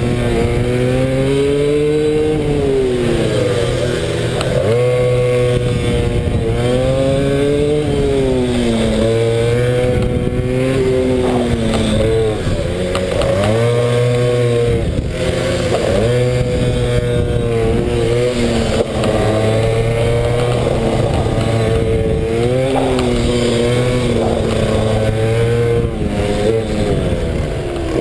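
A pit bike's single-cylinder engine heard on board at race pace, revving up hard and dropping back again and again, about every two seconds, as the rider works through the corners.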